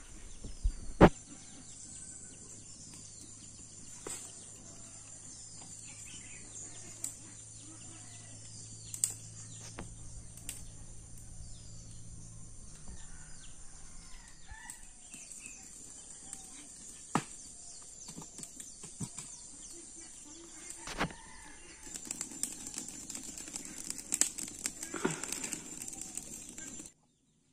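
Dry sticks of firewood being broken and fed into a wood-fired clay stove: sharp cracks now and then, the loudest about a second in, and a spell of rustling and crackling near the end. Birds chirp and insects buzz steadily behind.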